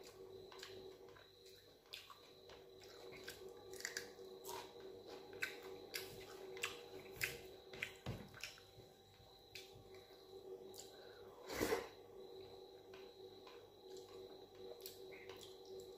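Close eating sounds of dal and rice eaten by hand: wet squelches of fingers mixing rice and dal in the plate, and lip smacks and chewing clicks, with one louder smack about three-quarters of the way through.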